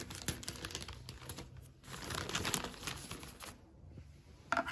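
Printed mailer bag crinkling and crackling as it is cut with scissors and pulled open, with dense small crackles in the first second or so and a stretch of rustling around two to three seconds in.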